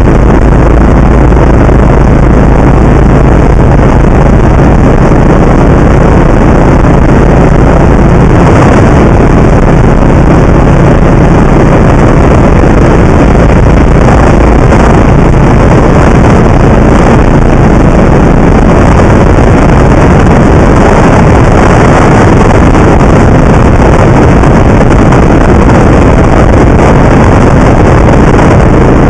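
Piston engine and propeller of a high-wing light aircraft, droning steadily, heard loud inside the cabin with wind rush over the airframe.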